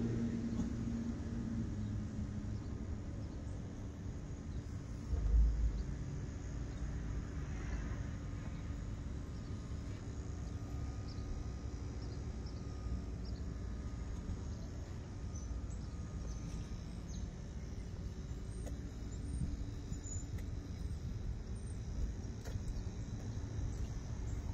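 Outdoor ambience under a stormy sky: a steady low rumble, with a brief low thump about five seconds in and faint high chirps later on.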